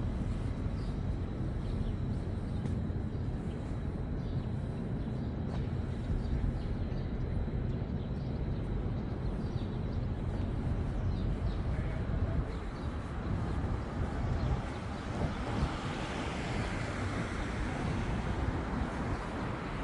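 Outdoor city street ambience: a steady low rumble of traffic, with a passing vehicle's hiss swelling over the second half.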